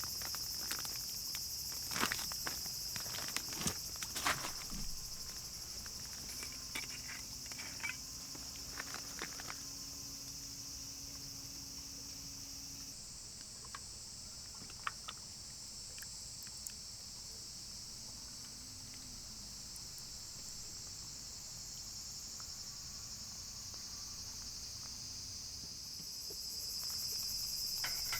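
Steady high-pitched chorus of summer insects shrilling, swelling louder near the end, with scattered clicks and taps in the first few seconds.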